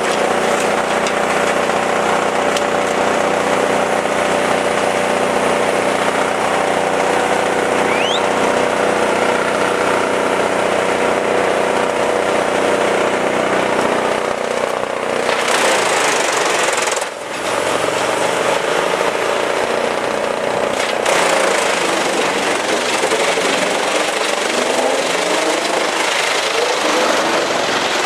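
Chainsaw running at high revs while cutting wood, with a brief drop in revs about seventeen seconds in.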